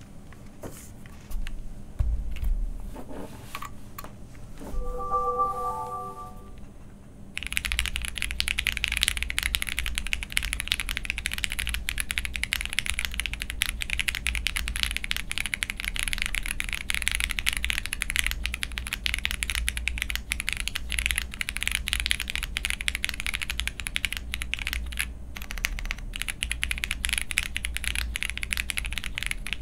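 Continuous typing on a jris65 65% custom mechanical keyboard with linear Cherry MX Black switches, a polycarbonate plate with poron plate foam and PCB tape, and GMK Retro Muted keycaps: dense, rapid keystroke clicks from about seven seconds in. Before that come a few scattered knocks and a brief chord-like tone.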